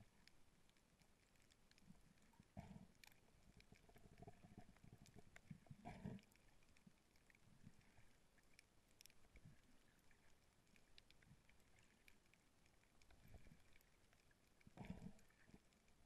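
Near silence from a GoPro filming underwater, with a few faint low thumps about two and a half seconds in, around six seconds in, and again near the end.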